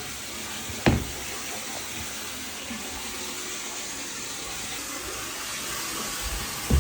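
Water running steadily from a tap into a bathtub as it fills. A short knock comes about a second in and another at the very end.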